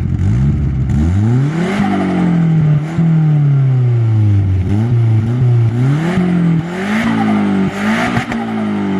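Turbocharged Nissan SR20 engine of an S14 Silvia with an external wastegate and an open-valved muffler, driven hard: the revs climb and drop again several times, with bursts of hiss at the higher revs.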